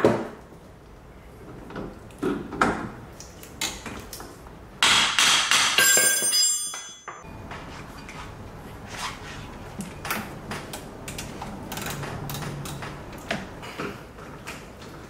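Hand tools and metal suspension parts clanking and clicking while a Volkswagen CC's front strut is being unbolted. There is a sharp knock at the start, and a loud, dense metallic stretch with high ringing for about two seconds midway that cuts off suddenly. After it come irregular lighter clicks of a wrench working the upper shock bolts.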